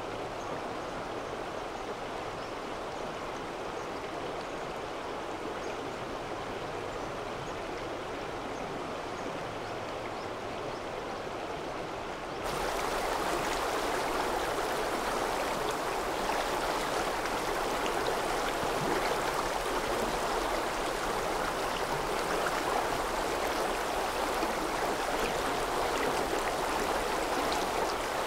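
Mountain stream, a steady rush of flowing water. About twelve seconds in it switches suddenly to a louder, brighter stretch of rushing water.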